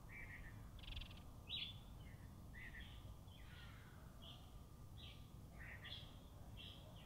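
Faint, high-pitched chirps and short calls of small birds, about a dozen separate notes spread throughout, over a low steady outdoor background.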